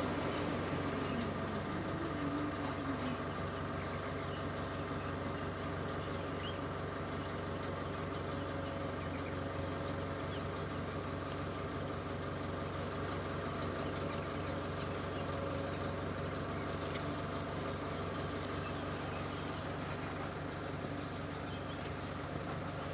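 Vehicle engine idling steadily, with faint high chirps now and then.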